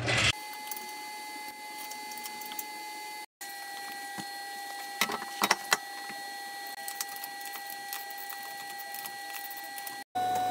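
A car wheel is being hung back on its hub, with a few sharp metallic clicks and knocks about halfway through. A steady faint high hum sits behind it, and the sound cuts out briefly twice.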